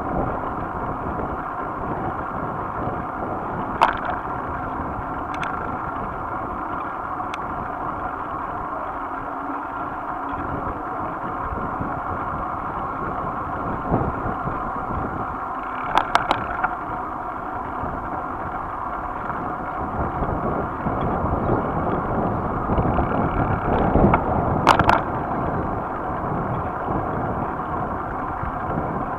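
Bicycle riding noise on a camera mounted on the bike: a steady rush of tyres on asphalt and wind. A few sharp clicks or rattles break in, once about 4 seconds in and in short clusters about 16 and 25 seconds in.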